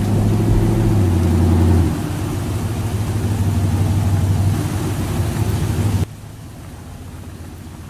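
A low engine hum, running steadily with slight shifts in pitch, that cuts off suddenly about six seconds in and leaves a quieter steady hiss.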